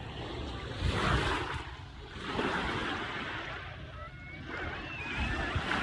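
Small waves washing in at the shoreline, swelling about a second in and again a little later, with wind rumbling on the microphone.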